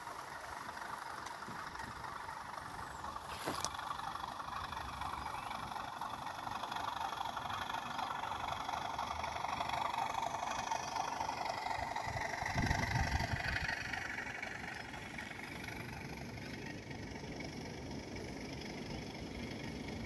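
Model Class 37 diesel locomotive and its wagons running past on the track, growing louder as the locomotive passes close about ten seconds in and fading as the wagons go by. A brief low rumble comes about twelve seconds in.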